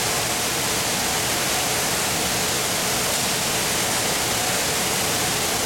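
Cheese applicator machine running on a bread line, its brush roller and conveyor going with shredded cheese falling onto the bread: a loud, steady, even noise with no distinct beat or tone.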